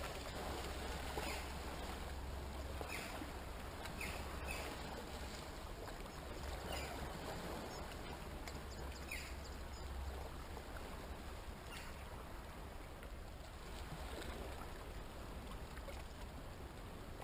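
Quiet rocky-shore ambience: sea water gently lapping and trickling over the rocks at the edge of a gully, over a steady low rumble. A few short, faint high chirps come through in the first half.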